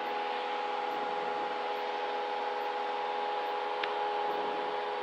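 Steady cabin drone of a Cessna 172 Skyhawk's engine and propeller in cruise, heard through the headset intercom: an even hiss with a few steady hum tones and no deep bass. A faint click nearly four seconds in.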